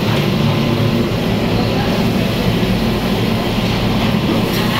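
Steady, loud roar of commercial kitchen equipment running, with a low hum under it and no breaks.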